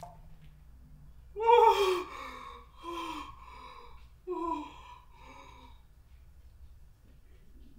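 A man's pained gasping cries, several in a row, each falling in pitch.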